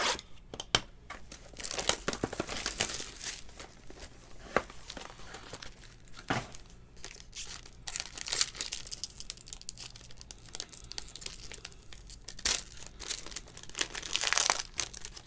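Silver foil wrapper of a Topps Tier One trading-card pack crinkling and tearing open by hand, in several bursts, the longest near the start and near the end. A few sharp clicks fall in between.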